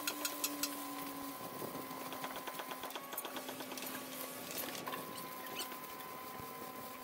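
Stick (shielded metal arc) welding: the electrode's arc crackles steadily as a steel pipe is welded to a round steel flange plate.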